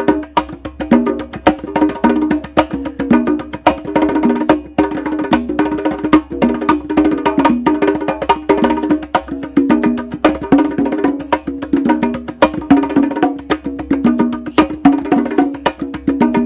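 A set of three congas played by hand: a fast, continuous rhythm of many strokes a second, with ringing pitched drum tones.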